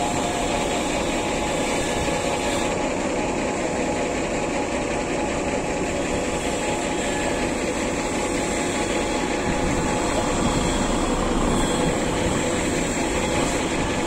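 Heavy truck engine running steadily as the truck crawls along behind the herd, an even drone with no breaks.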